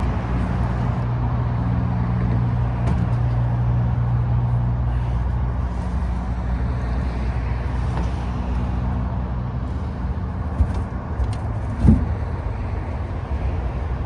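Pickup truck engine running at a steady idle, with a single knock about twelve seconds in.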